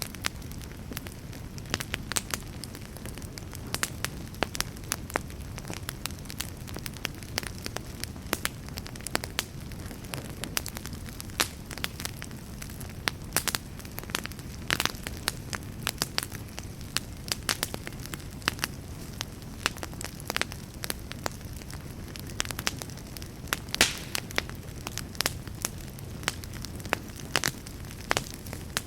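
Wood fire burning in a fireplace: a steady low rush of flame under frequent sharp crackles and pops from the burning wood, a few louder pops standing out.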